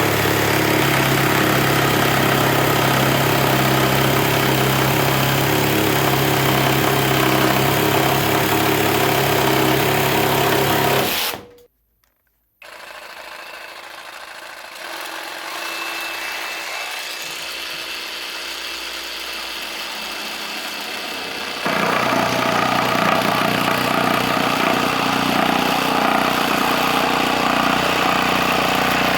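Parkside cordless jigsaw running, a steady loud motor sound. It cuts off abruptly about eleven seconds in, comes back quieter, and is loud again about two-thirds of the way through.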